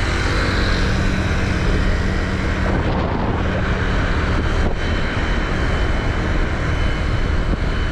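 Motorbike riding at speed: wind buffeting the microphone over the steady hum of the engine and tyres, with a low engine drone that drops away about three seconds in.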